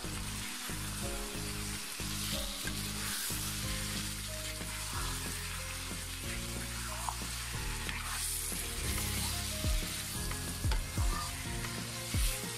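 Marinated goat meat sizzling and frying in spice masala in a non-stick pan as it is stirred, the kosha stage of frying the meat down in the masala. Sharp knocks of the stirring spatula against the pan come several times in the second half.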